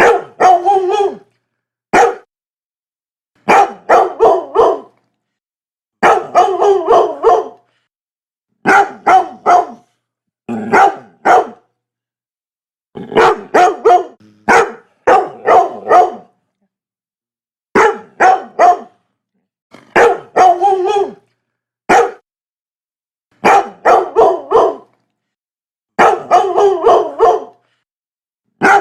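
Labrador retriever barking in quick runs of one to five barks, with short silent pauses between the runs.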